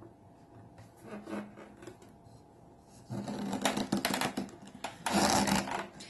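Plastic water tank of a Vicks cool-mist humidifier being handled and turned over: light plastic clicks and taps at first, then from about three seconds in a busier stretch of knocking, rubbing and scraping of hard plastic, loudest a little after five seconds.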